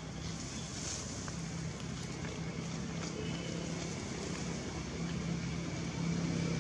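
A steady low mechanical hum like an engine running, with a constant hiss over it, growing a little louder near the end.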